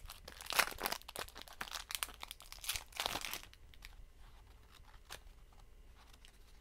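Packaging being torn open and crinkled by hand: a dense run of crackles and tearing for about three seconds, then only a few faint rustles and clicks.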